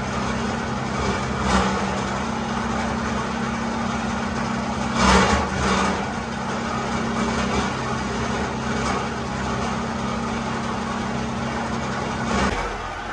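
An electric motor driving a steel drum by belt and pulley: a steady low hum with a mechanical rattle over it, and a louder rushing clatter about five seconds in. Near the end the hum drops away and a different machine noise follows.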